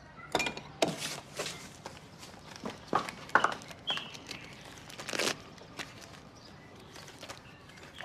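Footsteps of hard-soled shoes on a hard floor: irregular sharp clicks and scuffs that thin out over the last few seconds.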